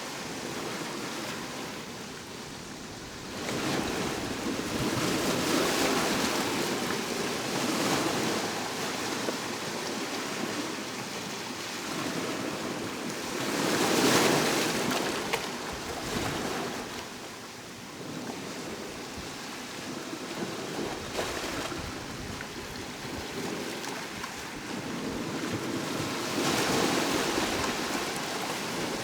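Sea waves breaking and washing on the shore, the surf swelling and falling back every few seconds, with the biggest wave about halfway through.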